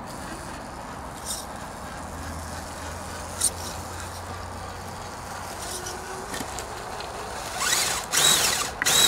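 Brushed electric motor and gear drive of an Axial Honcho RC rock crawler whining in two short throttle bursts near the end, its pitch rising and falling as the truck crawls over rocks.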